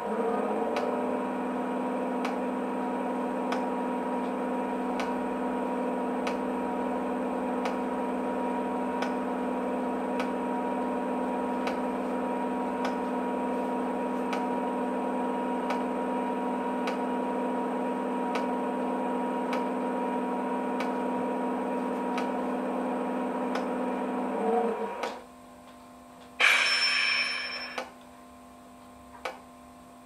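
ESU sound decoder in an OO-gauge Class 92 electric locomotive model playing the standing locomotive's simulated electrical equipment: a steady hum of several tones that cuts off about 25 seconds in. About a second later comes a short noisy burst. Faint regular ticking runs underneath.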